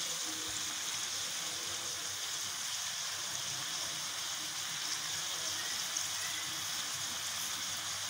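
Shredded cabbage, egg and chicken sizzling steadily in oil in a wok, a soft even hiss like light rain.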